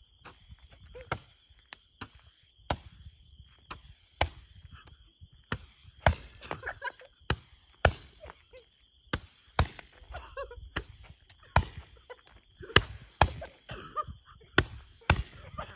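Hand-held 'cospe-fogo' (fire-spitting) firecracker, a Roman-candle type, shooting off shots: a run of sharp pops at irregular gaps of about a half second to a second and a half, some much louder than others, with faint hissing between them.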